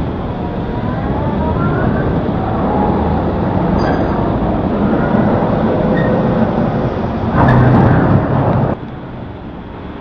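Loud, steady rumble of heavy machinery, with faint whining tones that rise and fall. Late on, a louder grinding surge lasts about a second and a half, then cuts off suddenly.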